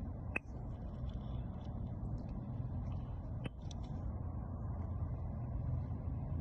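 Two sharp clicks, about three seconds apart, from a small Victorinox 84 mm Swiss Army knife's slip-joint tools snapping on their backsprings, with a few fainter ticks, over a steady low rumble.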